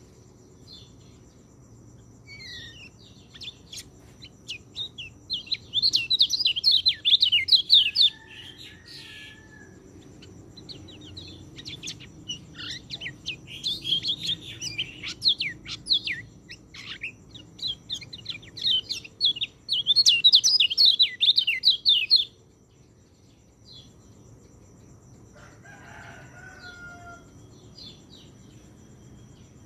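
Orange-headed thrush singing: three bursts of rapid, varied whistled phrases separated by short pauses. A fainter, lower call sounds near the end.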